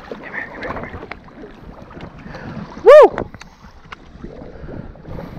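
Wind on the microphone and water moving around a small boat's hull. About three seconds in, one short, very loud, high-pitched squeal rises and falls.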